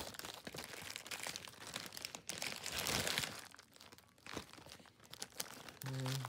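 Plastic postal mailer bag crinkling and crackling as hands grip and work at it, loudest around the middle and quieter for a second or so after.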